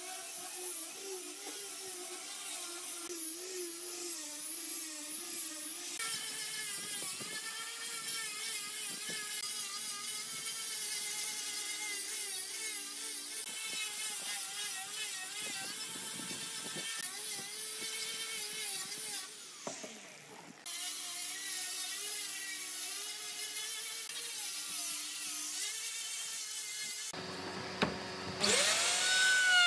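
Handheld angle grinder with a sanding disc sanding a solid wooden tabletop: a steady high motor whine whose pitch wavers as the disc bears on the wood, breaking off briefly about two-thirds of the way through. Near the end an electric plunge router starts up, its whine rising in pitch.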